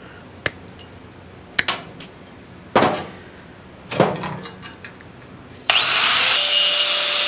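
A few sharp knocks of hand tools being set down on a steel panel, then an electric angle grinder switched on near the end, spinning up with a rising whine and running steadily and loudly.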